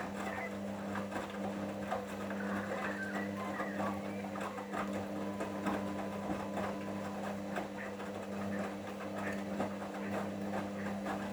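Hoover washing machine in the last minutes of its main wash, the drum motor running with a steady hum and many small knocks and clicks as the drum turns the wet load.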